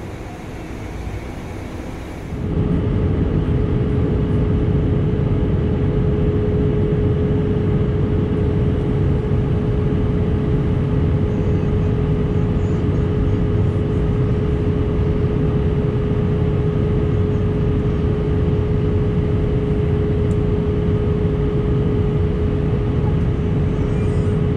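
Airbus A319 cabin noise heard from inside: a steady hum at cruise, then, after a cut about two and a half seconds in, a louder rumble of the underwing jet engine with a steady whine, from a window seat beside the wing during the approach to land.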